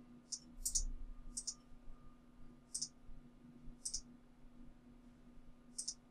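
Computer mouse button clicking: about six sharp, irregularly spaced clicks over a faint steady hum.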